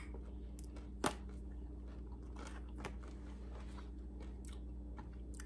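A person chewing a crispy air-fried egg roll with its mouth close to the microphone, with one sharp crunch about a second in and a few softer crackles after it, over a steady low hum.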